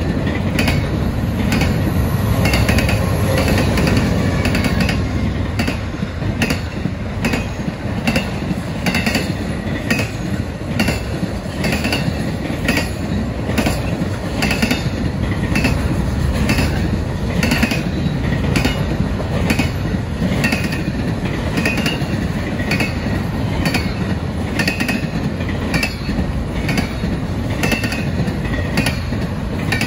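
Double-stack intermodal well cars of a freight train rolling past close by: a steady rumble with an even run of clickety-clack as the wheels cross rail joints.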